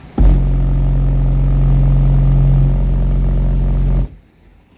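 Two Soundstream X3.12 12-inch subwoofers, powered by a Taramps MD 12000.1 amplifier at 0.5 ohm, play a 45 Hz test-tone burp for a car-audio SPL measurement. It is a loud, steady bass drone that starts suddenly just after the beginning, holds at a constant level for about four seconds and cuts off abruptly.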